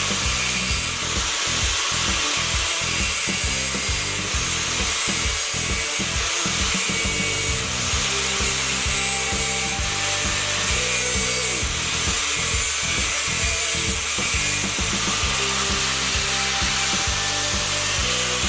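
Angle grinder with a thin cut-off disc cutting into a metal plate clamped in a vise: a steady, high grinding hiss. Background music plays underneath.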